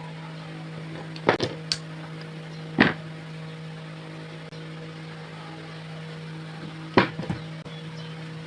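Sharp knocks and clicks of parts and tools being handled during work on a starter motor's bendix drive: a quick cluster about a second in, one near three seconds, and another cluster near seven seconds, over a steady electrical hum.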